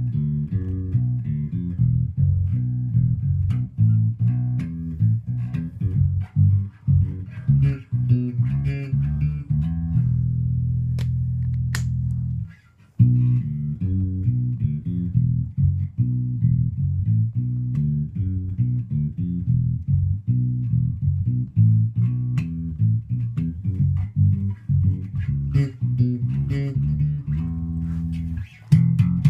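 Bass guitar playing a run of quick plucked notes. About ten seconds in, one note is held for a couple of seconds and then cut off, and after a short break the quick notes start again.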